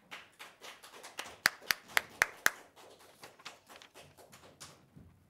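Scattered hand-clapping applause, with five sharp, loud claps close to the microphone about a second and a half in; the applause dies away near the end.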